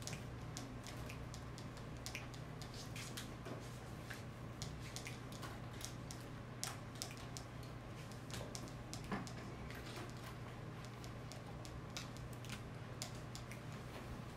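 Classroom room tone while students work a problem: a steady low hum with scattered light clicks and taps from students at their desks.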